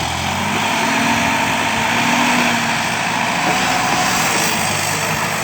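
Engine powering an Implanor CF220 forestry loader, running steadily with a slight shift in pitch about halfway through.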